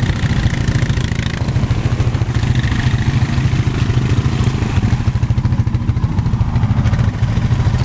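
ATV engine running steadily, with a rapid, even low pulse.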